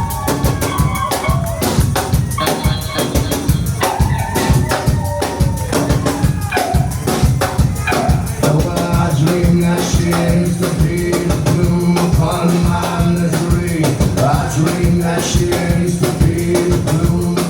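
Live band playing an instrumental stretch with no vocals: a busy, driving drum kit beat over bass. About halfway through, a low held note starts repeating in a steady pattern under the drums.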